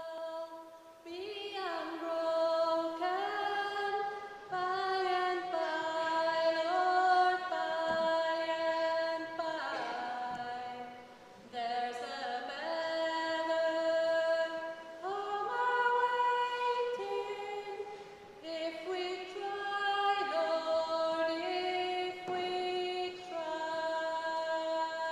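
Choir of mostly women's voices singing long held notes that slide from pitch to pitch, in phrases broken by short pauses about two fifths and three quarters of the way through.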